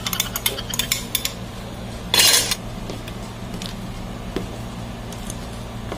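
Clinks and taps against a stainless steel mixing bowl as banana cake batter is worked by hand, several in quick succession in the first second or so, then a short, louder scraping rustle about two seconds in and a few faint taps after. A steady low hum runs underneath.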